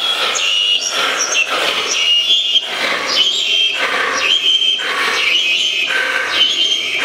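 Liquid nitrogen being drawn off from a dewar, hissing and sputtering in surges about once a second, with high squealing tones on top as it boils off.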